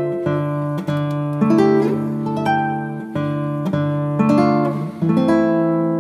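Background music of plucked notes and chords, each one struck and then fading, with a new note or chord about every half second.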